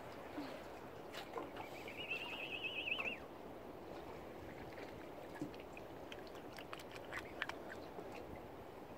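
A wild bird's call: one fast, wavering trill lasting just over a second, about two seconds in, over a steady outdoor hiss with a few scattered faint clicks.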